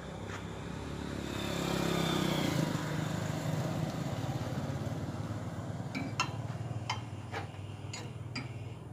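A motor vehicle engine passes by, swelling to its loudest about two and a half seconds in with its pitch falling as it goes, over a steady low hum. Later, a series of about six sharp clicks and taps.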